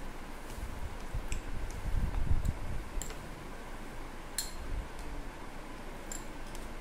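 Eating vegetable pulao by hand from a plate: soft low thuds and handling noise of fingers mixing rice, with several light, sharp clicks, the sharpest a little past the middle.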